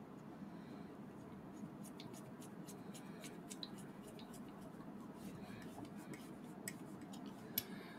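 Faint, scattered small clicks and ticks of a screwdriver turning tiny screws into a metal bracket of a model kit, with two sharper clicks near the end, over low room noise.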